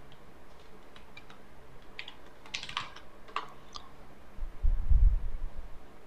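Computer keyboard keys clicking in short scattered runs as a username and password are typed. About four and a half seconds in comes the loudest sound, a low muffled rumble lasting about a second.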